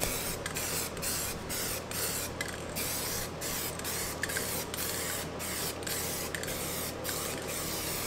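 Aerosol can of SEM Trim Black paint hissing as it is sprayed in quick passes, the hiss broken by brief pauses about twice a second.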